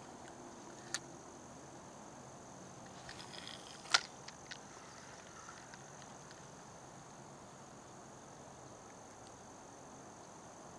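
Steady high-pitched chirring of crickets, with a few sharp clicks: one about a second in and the loudest just before four seconds, after a brief rustle.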